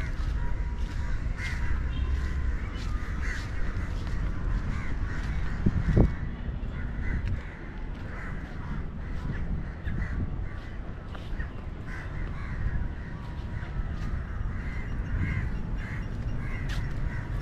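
Crows cawing again and again, short calls scattered all through, over a steady low rumble of wind on the microphone. A single sharp knock about six seconds in.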